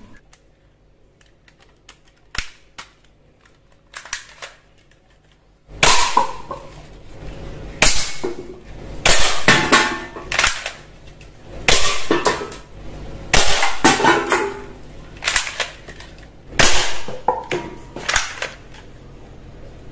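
Toy gun firing a string of sharp shots, about one a second, starting some six seconds in after a few faint clicks.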